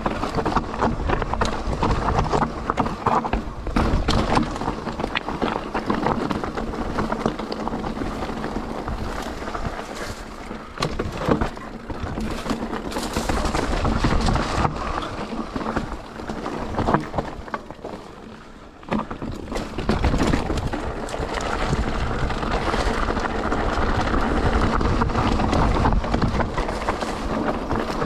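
Mountain bike riding a rough, rocky trail: a steady rush of noise with constant rattles and knocks from the bike over stones, easing off briefly about two-thirds of the way through.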